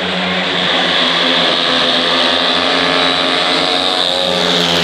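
Speedway motorcycles racing around the shale track, their 500 cc single-cylinder methanol-burning engines held at high revs in a loud, steady drone.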